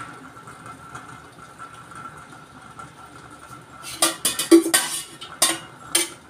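A metal spoon clinking against a stainless-steel oil container as oil is scooped out: a quick run of sharp, ringing clinks over about two seconds near the end. Under it is a faint steady hum.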